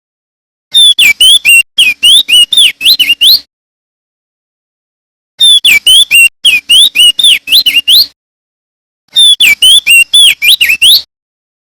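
Male opior jambul (crested white-eye) singing: three quick runs of clear whistled notes that swoop down and up in pitch, each run about two to three seconds long, with short silences between them.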